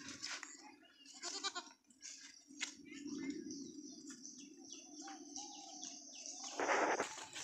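Goat kids bleating, short wavering calls, with small birds chirping. A brief loud rustling burst near the end.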